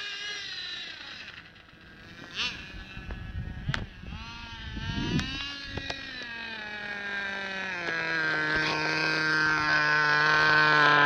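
Radio-controlled car's motor falling in pitch and fading after a fast run, with a few sharp knocks in the quieter middle. It then runs steadily again at a lower pitch, stepping down once about eight seconds in and growing louder toward the end.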